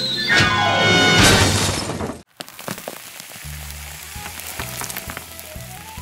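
Cartoon music with a sliding, falling run and a crash-like sound effect about a second in, cutting off suddenly just after two seconds; quieter music with scattered crackling and clicks follows.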